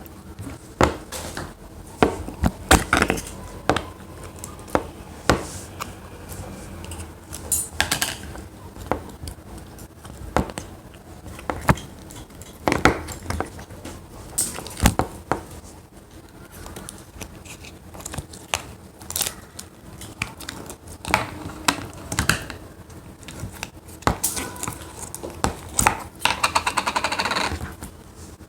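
Hands squishing, pressing and stretching slime, with irregular sticky clicks and pops; near the end comes a dense crackling stretch of about two seconds.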